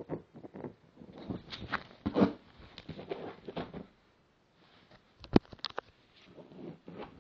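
A hand scratching and scraping on paper in quick, irregular strokes, mimicking a small hidden animal to tease a cat. It stops briefly around the middle, and a single sharp click comes about five seconds in.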